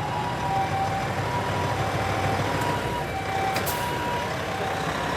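Japanese ambulance siren sounding its two-tone high-low call, switching between the two pitches about every half second, over the low rumble of heavy vehicle engines. A single sharp click about three and a half seconds in.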